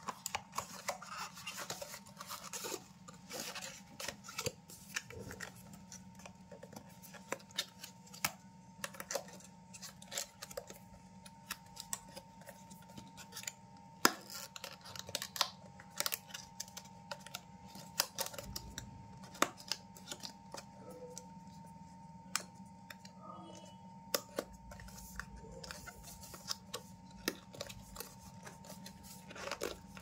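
Cardboard retail box being handled and opened by hand: irregular clicks, taps and scrapes of the paperboard flaps and fingers against the box, with one sharper snap about halfway through. A steady faint hum runs underneath.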